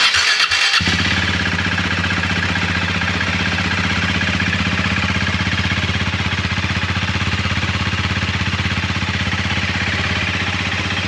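A 2020 KTM RC390's single-cylinder engine with its stock exhaust on a cold start: the starter cranks for under a second, then the engine catches and settles into a steady idle.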